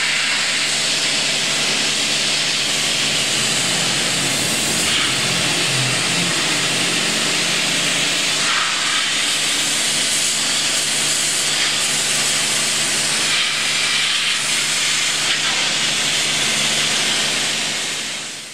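Pressure-washer jet spraying water onto steel machinery: a steady, loud hiss of the spray with a low hum underneath, fading out near the end.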